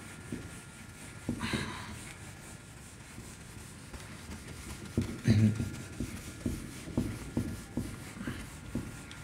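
Whiteboard duster rubbed across a whiteboard, wiping off marker writing. It goes in back-and-forth strokes that become a brisk, louder rhythm of about two to three strokes a second from about halfway through.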